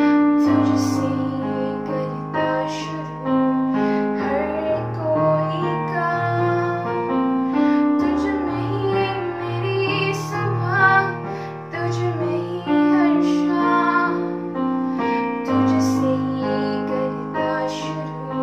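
A girl singing a melody while accompanying herself on an electronic keyboard, with held chords and a bass note that changes every second or two.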